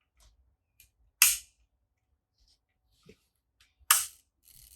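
Leaf shutter of a Voigtländer Bessa folding camera fired at its 1-second setting: a sharp click as it opens and another as it closes about two and a half seconds later, with faint handling clicks around them. The owner takes the result as a sign the slow speed is not reliable.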